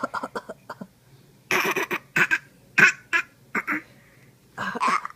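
Repeated coughing: a quick run of short coughs, then several harsher coughs about a second apart.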